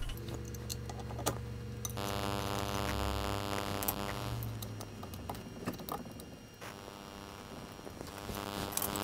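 Light metal clinks and knocks as the aluminium motor plate is set onto its mount, with a steady droning hum that comes on abruptly twice, for a couple of seconds each time, about two seconds in and again near the end.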